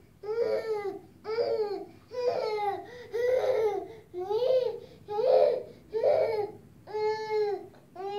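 A toddler's voice crying out in a string of short wails, about one a second, each a brief pitched cry.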